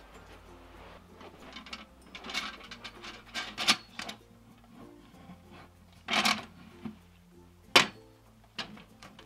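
A metal folding step stool being handled and opened out, giving several sharp clanks and knocks, the loudest nearly four seconds in and again near the end, over light background music.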